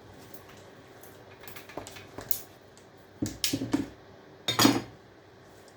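Scrap copper pipe being handled and knocked about: a few light metallic clinks, then louder clanks about three seconds in and again about four and a half seconds in.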